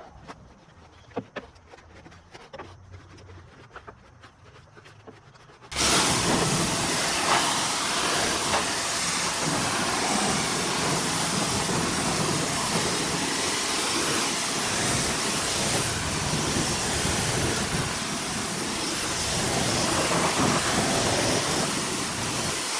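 A few faint taps, then about six seconds in a pressure washer cuts in suddenly, spraying the wheel with a loud, steady rush of water.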